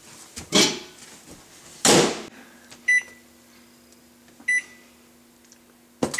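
Microwave oven: two clunks, then a steady running hum broken by two short high beeps, and a sharp clunk near the end.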